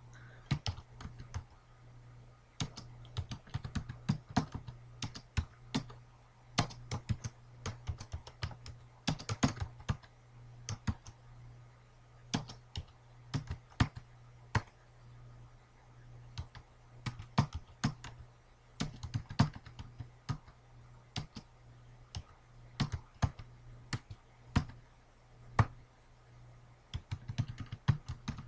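Typing on a computer keyboard: irregular runs of key clicks with short pauses between them, over a low steady hum.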